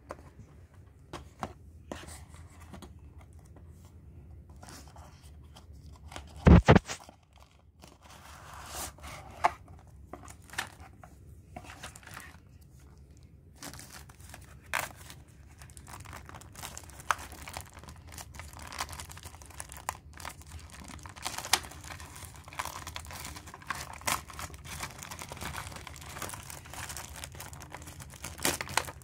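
Handling sounds of a cardboard box with scattered clicks, a single loud thump about six seconds in, then thin clear plastic wrapping crinkling and tearing as it is peeled off a model bus through the second half.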